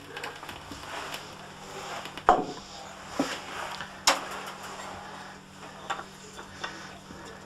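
Scattered knocks and clicks of objects being handled and set down, the loudest about two seconds in, over a faint steady hum.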